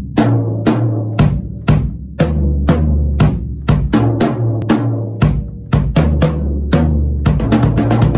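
1970s made-in-Japan Bollero drum kit played for a sound test: single strokes about two a second, each ringing on with a low booming tone, then quicker, denser strokes from about seven seconds in.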